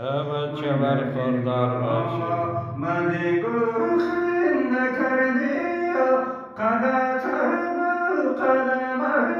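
A man singing a Hazaragi ghazal, drawing out long, wavering melodic notes, with a short break between phrases about six and a half seconds in.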